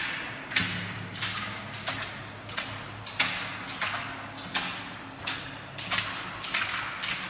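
Footsteps walking at a steady pace through a concrete tunnel, about one and a half steps a second, each step ringing on in the tunnel's echo.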